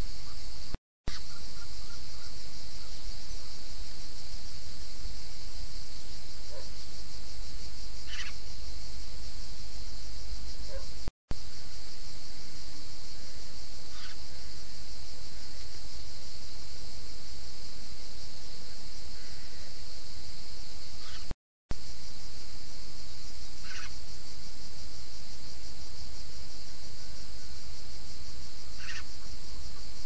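A steady, high-pitched chorus of insects, with four short bird calls spread through it. The sound cuts out completely for a moment three times, where separate trail-camera clips are joined.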